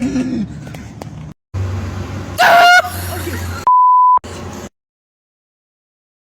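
Short prank clips cut together: a loud, shrill, pitched blast about two and a half seconds in, then a half-second steady 1 kHz censor bleep. After a brief snatch of clip sound, the audio cuts to total silence.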